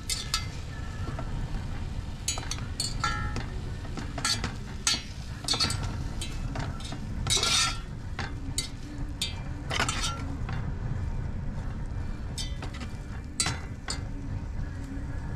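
A metal fork stirring potatoes and seaweed in a saucepan, clinking and scraping irregularly against the pan, over a steady low rumble.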